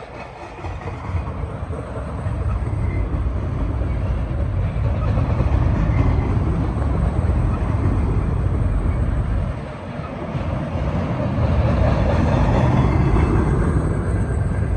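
BNSF freight train of auto rack cars rolling past, a loud steady rumble that dips briefly about nine and a half seconds in before building again.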